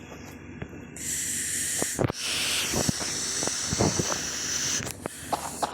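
A strong, steady hiss that starts about a second in and stops shortly before the end, with scattered sharp clicks and knocks around it.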